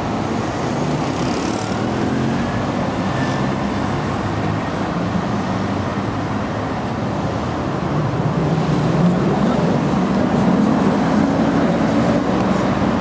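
City street traffic: a steady hum of passing cars and buses, getting louder about two-thirds of the way through.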